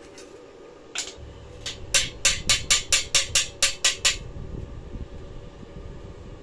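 Steel chipping hammer knocking the slag off a fresh spot weld on a bolt held in a vise. There is one strike about a second in, then a quick run of about a dozen sharp metal taps, roughly five a second, which stops around four seconds in.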